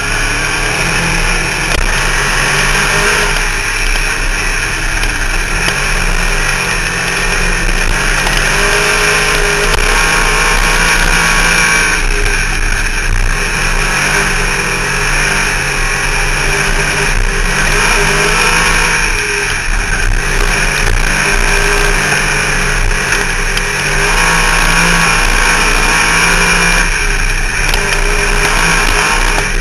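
Race car engine heard from inside the cockpit, running hard at racing speed. Its pitch drops and climbs again every few seconds as the driver lifts for the turns and gets back on the throttle down the straights.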